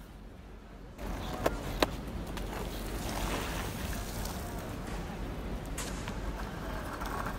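Skateboard wheels rolling over rough asphalt in a steady rumble that starts suddenly about a second in, with two sharp clacks of the board close together just after.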